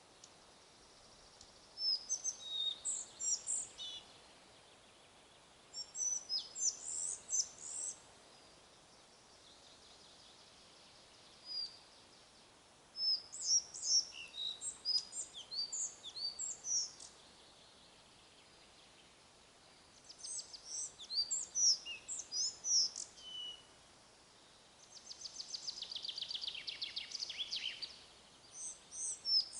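Songbirds singing in the forest: bright, varied song phrases of two to three seconds, repeated every few seconds, with a fast rattling trill near the end. A faint steady hiss of wind runs underneath.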